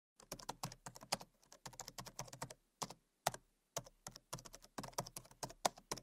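Computer keyboard typing: a run of quick, uneven key clicks with a few short pauses.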